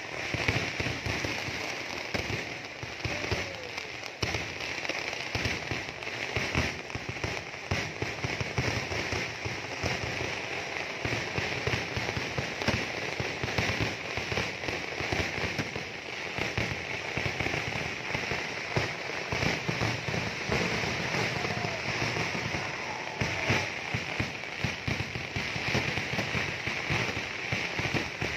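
Fireworks display: a dense, continuous crackling and popping of firecrackers and aerial shells bursting overhead, with frequent sharper bangs.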